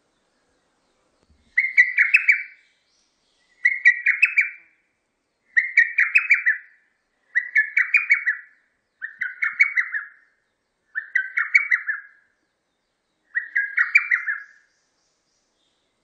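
Lesser cuckoo singing its song: seven loud phrases, each a quick run of five or six sharp, stuttering notes, repeated about every two seconds.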